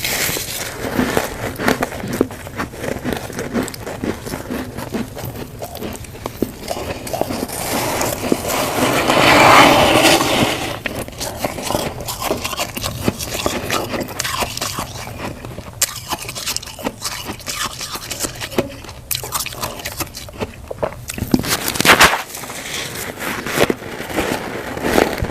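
Crunchy humidifier frost being bitten and chewed: dense crunching and crackling, swelling louder for a few seconds around the middle, with a sharp louder crunch near the end.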